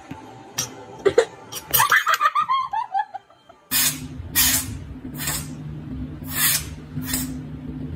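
A quick run of falling, laugh-like squeaks, then a tabby kitten letting out about five short, breathy bursts roughly a second apart over a steady low hum.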